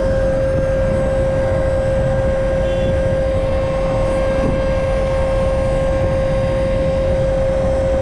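Tractor running at a steady speed, with a loud constant whine over a low rumble, while the fertilizer output is being measured.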